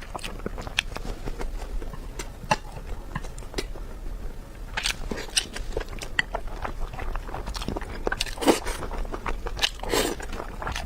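A person eating close to the microphone: irregular chewing and biting clicks, with louder clusters about five, eight and a half and ten seconds in.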